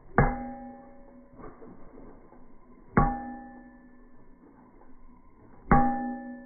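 Blacksmith's hammer striking metal on the anvil three times, slowly and evenly spaced, each blow ringing out with a clear metallic tone that dies away over about a second.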